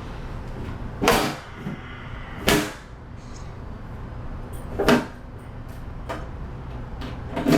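Four sharp knocks, spaced unevenly, the last near the end, over a steady low hum.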